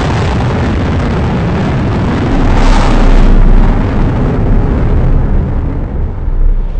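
Blue Angels F/A-18 Hornet, its twin jet engines at high power during a display climb: loud, rushing jet noise with a deep rumble that swells to its loudest about three seconds in, then eases off.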